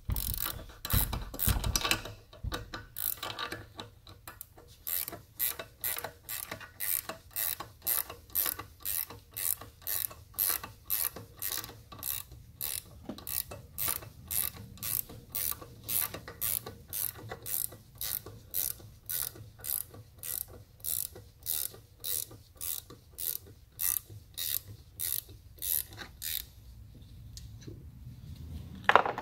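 Hand ratchet clicking steadily, about two clicks a second, as it backs off the bolt of an LS valve spring compressor to release the valve spring tension. The clicking stops near the end.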